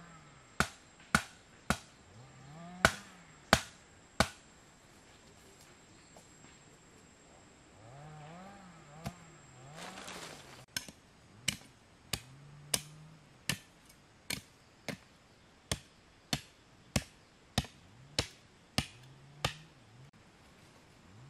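Sharp chopping blows on wood, about one every two-thirds of a second, in two runs with a pause of several seconds between them. A faint low tone rises and falls underneath.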